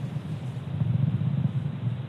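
Falcon 9 first stage, nine Merlin 1D engines, in powered ascent: a steady, ragged low rumble.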